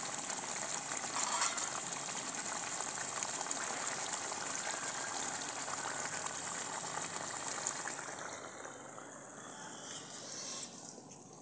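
Gravy of vegetable Manchurian balls simmering in a wok, a steady bubbling hiss that drops off about eight seconds in.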